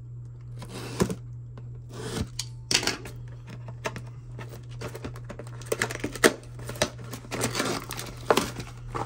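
A cardboard trading-card box being unwrapped and opened by hand: plastic wrapper crinkling and tearing, and cardboard flaps scraping and rattling, with irregular sharp crackles. A steady low hum sits underneath.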